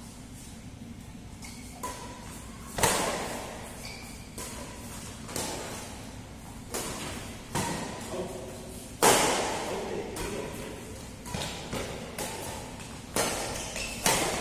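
Badminton rally in an echoing hall: rackets striking the shuttlecock about once a second, two of the hits much louder, with short squeaks of shoes on the court mat between them.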